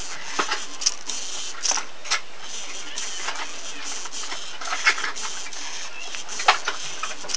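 LEGO Mindstorms NXT servo motors and gears of a robot turning a Christmas ornament and drawing on it: a steady high whir with irregular sharp clicks.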